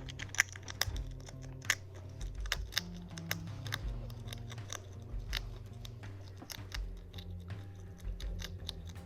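A hedgehog crunching and chewing a snack: irregular sharp crunches over soft background music.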